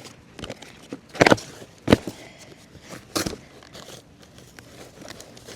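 Clear plastic sheeting crinkling and crackling as it is handled, with three loud sharp crackles, about a second, two seconds and three seconds in, among smaller rustles.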